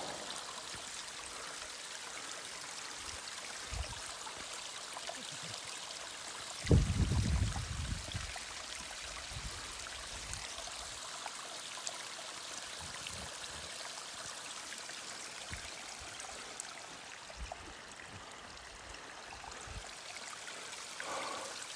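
Steady rushing hiss of running water, like a mountain stream. A brief low rumble about seven seconds in.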